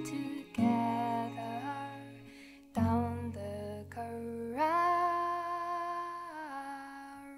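Gentle Irish folk soundtrack music: plucked string chords, then a long held melody note that wavers slightly and fades.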